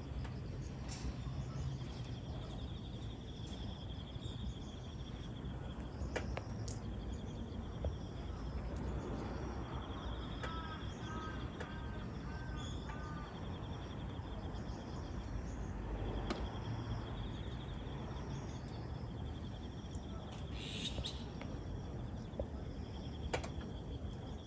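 Outdoor ambience: an insect trills at a steady high pitch in long stretches that start and stop several times, with scattered bird chirps and a short run of quick bird notes near the middle. A low background rumble runs under it.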